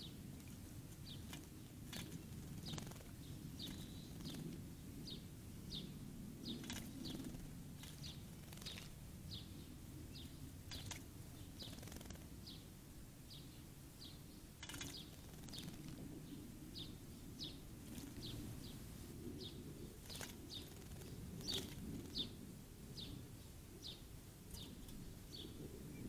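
Song sparrow bathing in a shallow bird bath, with scattered small splashes. A bird gives a steady series of short, high chip notes, about one or two a second, over a low outdoor rumble.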